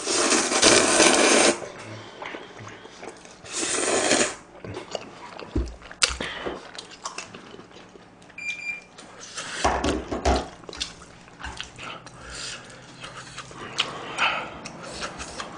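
Mouthfuls of jjajang buldak instant noodles being slurped: a long loud slurp for about the first second and a half, a second shorter slurp around four seconds in, then quieter chewing and smacking with small clicks.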